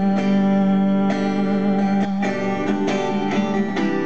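Acoustic guitar strummed in a steady rhythm, chords ringing between sung lines of a song.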